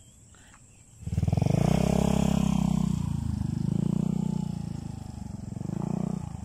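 Small motorcycle engine running close by from about a second in, its revs rising and falling several times.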